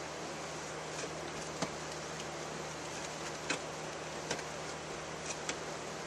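A handful of small, sharp clicks and taps, about five, from the rubber inner dust boot and shifter parts being worked back into place by gloved hands, over a steady hiss.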